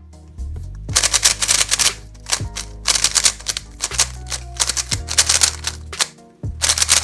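Plastic pieces of an MFJS Meilong 3x3 speedcube clacking as its layers are turned fast in several bursts; the cube is dry, with no factory lube. Background music plays underneath.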